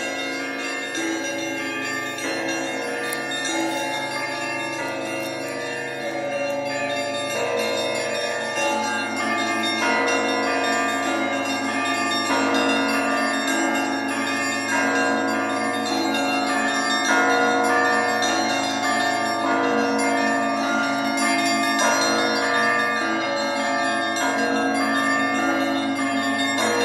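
Church bells ringing in a continuous peal, several bells of different pitches struck in quick succession so that their tones overlap. The ringing grows a little louder partway through.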